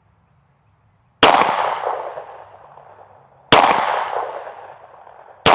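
Springfield Echelon pistol firing single shots, about two seconds apart: two shots, then a third at the very end, each trailing off in a long echo. These are test shots to check the zero of a freshly adjusted pistol sight.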